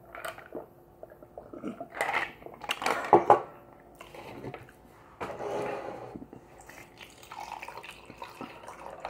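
Ginger ale poured from a can into a glass of iced tea, a liquid pour with a few clicks and knocks from handling the can and glass.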